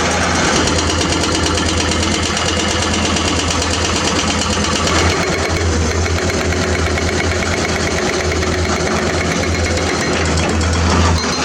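Diesel engine of heavy construction machinery running steadily, a low hum with a fast, even pulse.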